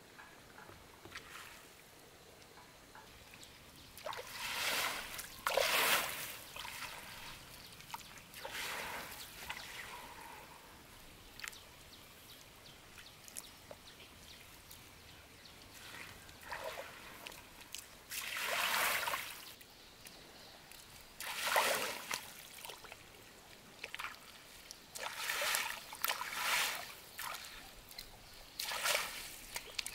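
A fishing net being hauled by hand out of shallow river water, splashing and dripping in irregular bursts of a second or two as each stretch of net and its floats comes out.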